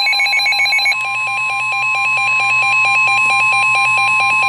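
Emergency alert tones opening a weather radio warning: a rapid two-pitch electronic warble, then about a second in a steady alarm tone sets in, with fast pulsing beeps of about seven or eight a second over it. The alarm tone signals an urgent warning, here a severe thunderstorm warning.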